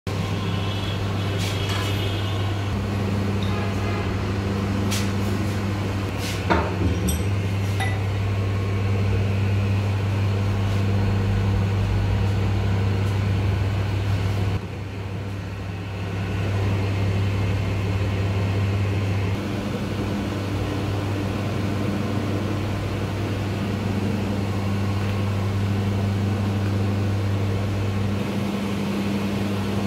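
Steady low electric hum of workshop machinery, with a handful of sharp metallic clicks and one knock in the first several seconds.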